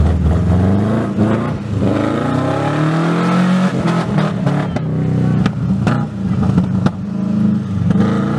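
Subaru EJ22 2.2-litre flat-four with unequal-length headers and no axle-back exhaust, revving hard as the Legacy Outback drifts on snow. The engine pitch climbs about two seconds in, then rises and falls with the throttle, with a few sharp clicks in the middle.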